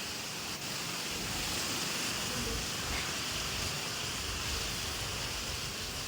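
Strong wind blowing over the microphone: a steady rushing hiss with an uneven low buffeting rumble.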